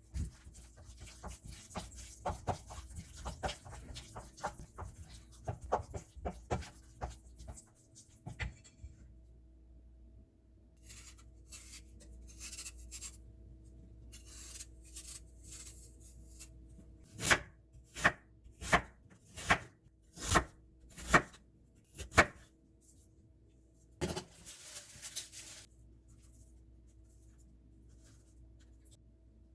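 Knife cutting food on a cutting board: a fast run of light, quick cuts, then after a pause a series of about seven harder chops, a little under one a second.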